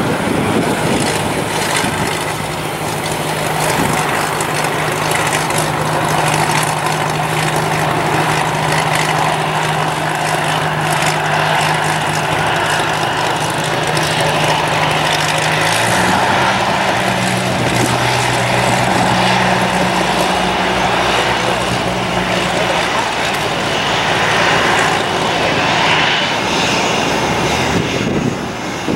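Twin piston-engine Cessna 402 taxiing close by, engines and propellers running with a steady drone. About halfway through, the low hum splits into two tones as the two engines settle at slightly different speeds.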